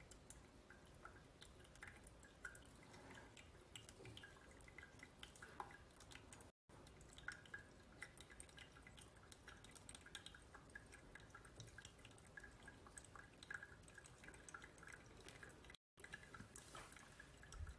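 Faint trickle and patter of a thin stream of hot water poured from a gooseneck kettle onto coffee grounds in an Origami pour-over dripper with a Kalita filter. This is the last pour of the brew, up to about 330 ml.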